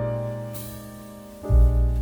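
Background music led by piano over a deep bass: a held chord fades away, and a new chord is struck about halfway through.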